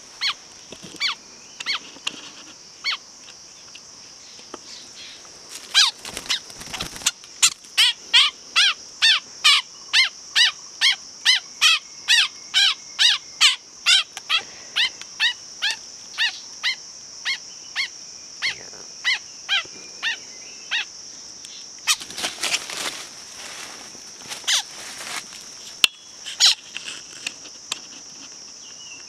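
A small songbird held in the hand gives a run of short, sharp calls, about two or three a second through the middle, then fewer. A few bursts of rustling leaves and flapping sound between the calls, over a steady high drone.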